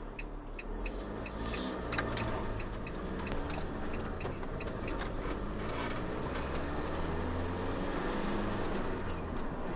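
Renault Master camper van driving on an open road, heard from inside the cab: steady diesel engine hum and tyre and road noise. A light, quick ticking sounds during the first two seconds or so.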